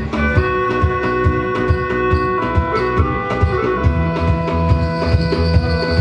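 Live instrumental folk-style ensemble music: a wooden wind instrument holds long steady notes over a regular hand-drum beat, with plucked strings.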